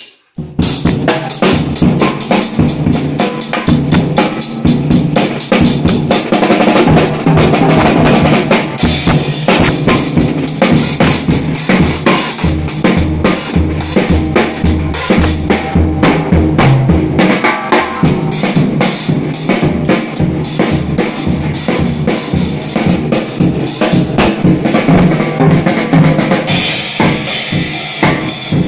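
Acoustic drum kit played loudly and without a break, beginning about half a second in: rapid snare, bass drum and tom strikes under ringing cymbals, with the cymbal hiss growing brighter near the end.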